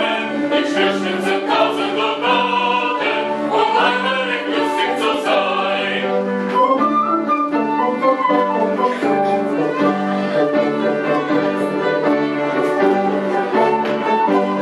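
A vocal ensemble singing, with voices holding a low sustained note under a wavering melody.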